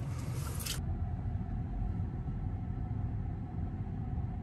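Steady low rumble inside a Tesla Model 3's cabin as it sets off in reverse, with a faint steady hum above it. A brief rustling noise in the first second.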